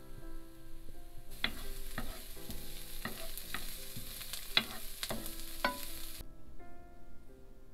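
Diced onion sizzling in oil in a nonstick frying pan while a wooden spoon stirs it, scraping and tapping against the pan several times. The sizzle comes in about a second in and stops abruptly a little over a second before the end.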